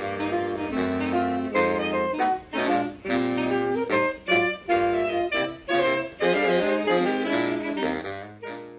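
Instrumental background music: a melody of short and held notes over a steady bass line.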